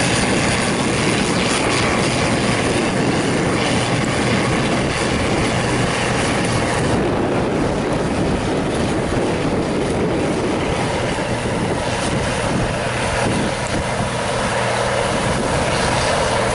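International 5288 tractor's turbocharged six-cylinder diesel running steadily under load as it pulls a six-bottom moldboard plow. The sound grows a little duller about halfway through.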